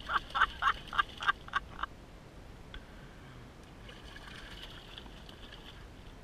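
A person's voice in a quick run of about seven short bursts over the first two seconds, then faint splashing of a hooked trout thrashing at the surface beside a kayak.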